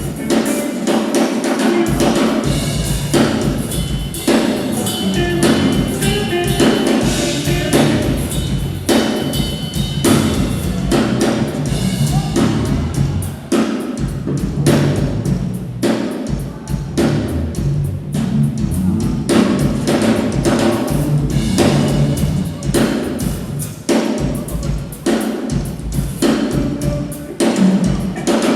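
Drum kit played continuously in a busy groove: dense snare and bass-drum hits with cymbals, over sustained pitched instruments underneath.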